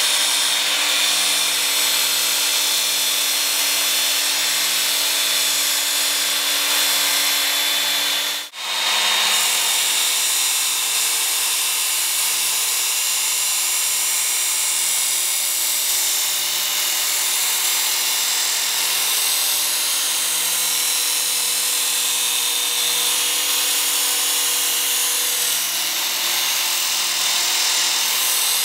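Work Sharp Ken Onion Edition belt sharpener running with a Condor Selknam knife's steel blade pressed against its abrasive belt: a steady grinding hiss with a high whine over the motor's hum, as the belt takes off heavy stock and throws sparks. The sound drops out for a moment about eight and a half seconds in.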